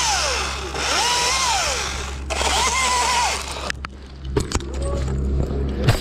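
Small chainsaw cutting through pine branches in three short bursts, its pitch rising, holding and dropping each time. Near the end, a few sharp knocks.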